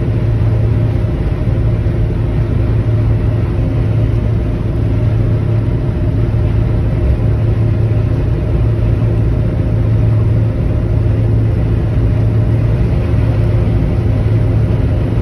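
Steady drone of a vehicle driving at highway speed, heard from inside the cabin: engine and road noise with a strong low hum, unchanging throughout.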